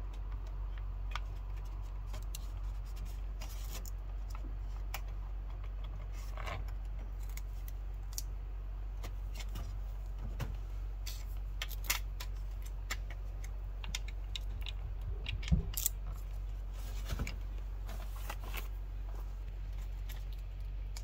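Scattered small clicks and knocks of hard plastic as a floodlight camera fixture is handled and fitted by hand, with one sharper knock about three quarters through, over a steady low hum.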